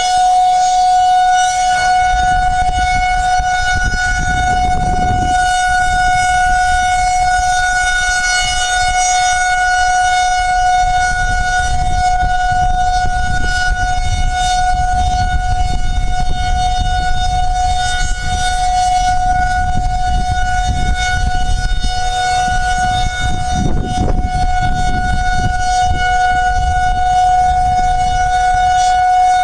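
Outdoor civil-defense tornado siren holding one steady tone, sounded for a real tornado warning. A low rumbling noise runs beneath it.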